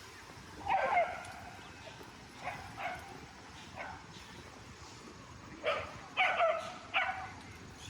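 A dog barking: short, high yips, a few scattered early and a quicker run of four louder ones near the end, over street hum.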